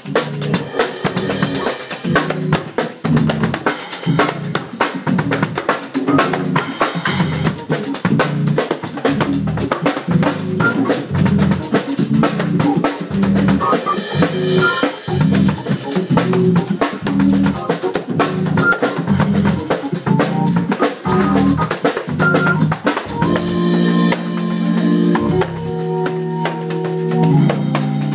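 Live jam of a Hammond organ over a drum kit groove: the organ plays short, punchy low notes in a steady rhythm under the drums and cymbals, then moves to held chords near the end.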